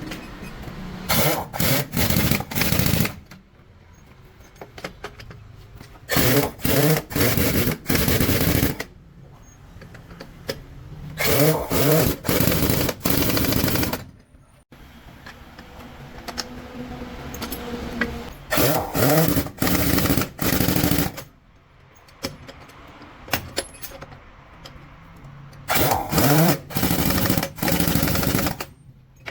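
Pneumatic impact wrench rattling in short bursts, three or four at a time, in five clusters a few seconds apart, as nuts are run off or on a truck wheel.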